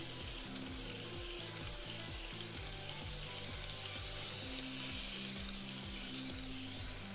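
GREENMAX N-scale Tokyu 5050-4000 series model train running on curved track: a steady hiss of its wheels and motor, with a quiet melody in the background.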